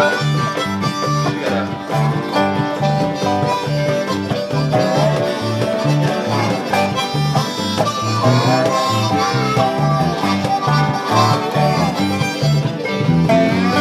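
Harmonica solo, the harp cupped in the hands against a microphone, its notes bending in pitch, over strummed acoustic guitars and an electric bass keeping a steady country rhythm.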